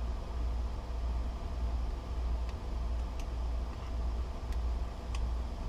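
Steady low background hum, with a few faint light clicks spread through it as the rekeyed lever lock is handled.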